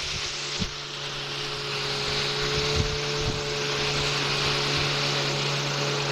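Small outboard motor running steadily with a low, even hum, slowly growing louder as the boat comes closer.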